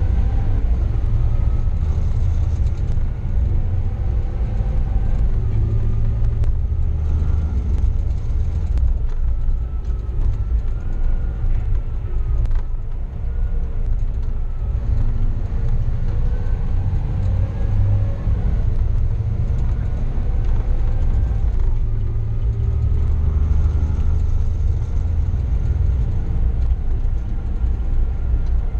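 Heavy diesel engine of a Komatsu 405 dump truck running under load, heard from inside the cab while driving, with a steady deep rumble. The engine note slowly rises and falls as the engine speed changes.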